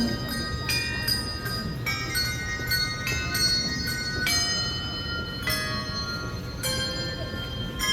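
Handbells played as an instrumental passage: struck notes, a new one about every second, each left ringing so they overlap into held chords.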